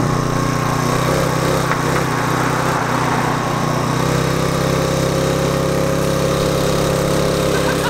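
Small engine of a motorized ride-on cooler running steadily under load as it tows a rider on an electric bike, with a thin whine above the engine note. About halfway through, a second, higher tone joins in.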